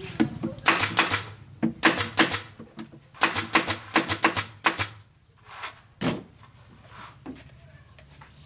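Music laid over the video: runs of sharp percussive hits over a steady low drone, thinning to a few scattered hits after about five seconds.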